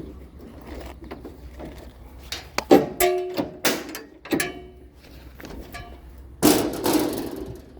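Scrap metal being handled: a run of sharp metal clanks, several ringing briefly, about three seconds in, then a longer clattering crash near the end.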